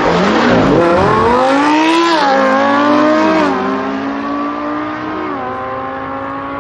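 Lamborghini Huracán LP610-4's naturally aspirated V10 with a Capristo exhaust accelerating hard past, loud, its pitch climbing through the gears with quick upshifts about two and three and a half seconds in and again near five and a half. The sound then fades as the car pulls away.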